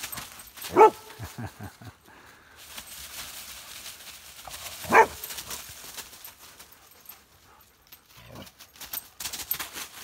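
A dog barks twice during rough play: one short bark about a second in and another about five seconds in. Between them dry leaves rustle and crackle as the dogs scuffle and dig through the leaf litter, busier near the end.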